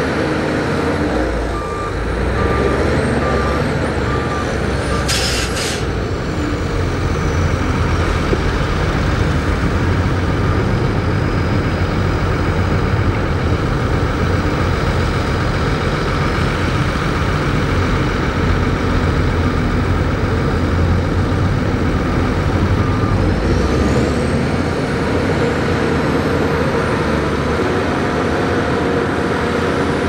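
Diesel engines of Shantui crawler bulldozers running steadily under load while pushing mud. A reversing alarm beeps about five times in the first few seconds, and a short air-brake hiss comes about five seconds in.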